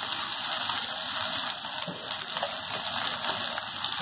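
Chopped colocasia leaves sizzling in hot coconut oil in a kadhai as they are tipped in from a plate: a steady frying hiss with a few faint ticks.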